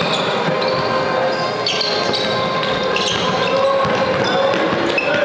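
Indoor basketball game: the ball is dribbled on the hall's court floor, and sneakers squeak in short high chirps over a steady din.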